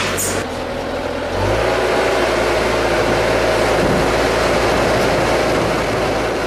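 Factory machinery running steadily, its low hum stepping to a new pitch about a second and a half in.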